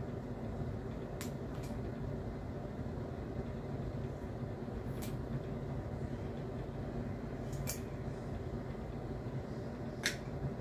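Steady low background hum with a handful of light, sharp clicks and taps from a glass oil dispenser bottle being handled while a label is put on it.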